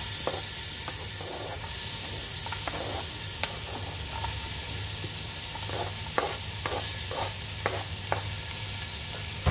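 Chopped onion frying in hot oil in a pot: a steady sizzle that starts suddenly as the onion goes in, with scattered light clicks and taps as more onion is pushed off a cutting board with a wooden spoon.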